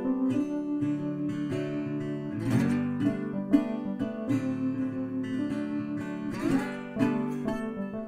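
Background music of acoustic guitar: sustained chords with a strong strum about every four seconds and picked notes in between.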